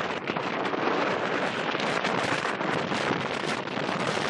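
Wind buffeting the microphone, a steady rushing noise that rises and falls slightly.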